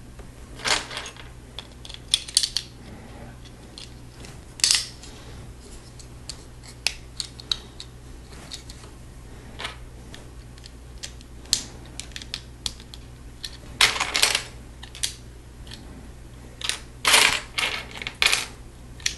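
Small plastic Lego pieces clicking and clattering as they are rummaged out of a loose pile and pressed onto a model: irregular short clicks, with longer clatters about 14 and 17 seconds in. A steady low hum lies underneath.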